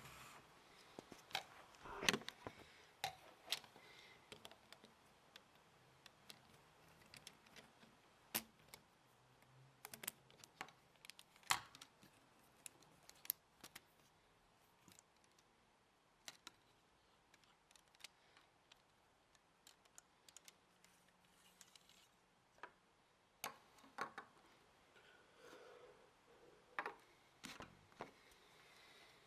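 Scattered light plastic clicks and taps of Lego parts being handled and worked, irregular and unrhythmic, over near silence.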